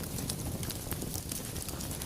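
Wood fire crackling in a fireplace: a steady low rumble of flames under many small, irregular pops and snaps.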